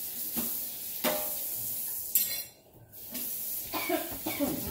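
A utensil stirring and scraping in a pot of simmering fish stew, with a few sharp knocks against the pot over a steady cooking hiss. The sound drops away briefly about halfway through.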